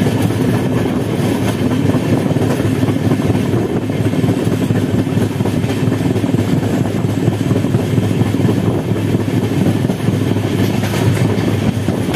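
Indian Railways passenger coach running at speed, heard from its open window: a loud, steady rumble and rattle of the wheels on the track with rushing air.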